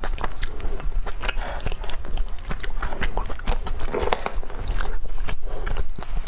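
A woman chewing roast duck close to a lapel microphone, with many irregular wet mouth clicks and smacks.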